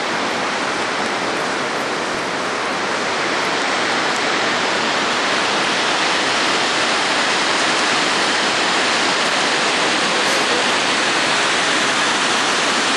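Steady, loud rushing of the large waterfall, Stigfossen, that falls right beside the viewpoint.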